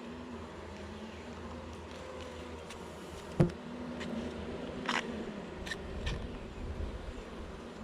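Honeybees buzzing around an open hive, a faint wavering hum, with one sharp click about three and a half seconds in and a few lighter clicks after it.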